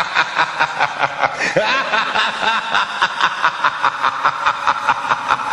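Someone laughing in quick, even pulses, about five a second.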